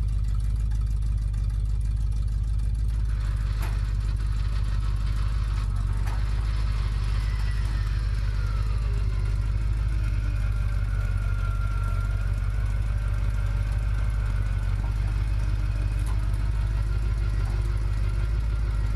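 A vehicle engine idling steadily close by, a constant low rumble. There are two short knocks about four and six seconds in.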